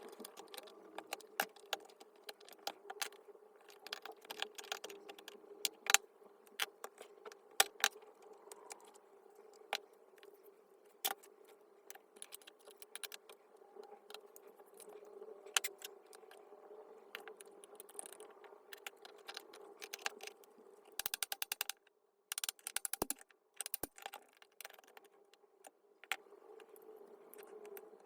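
Irregular clicks and clinks of tools and small metal parts being handled, with a quick run of rapid clicking a little past two thirds of the way through, over a faint steady hum.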